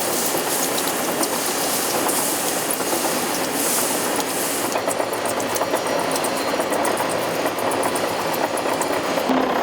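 Bearing-factory machinery running steadily, with two spells of hissing in the first half and scattered rapid clicks and ticks of metal parts throughout.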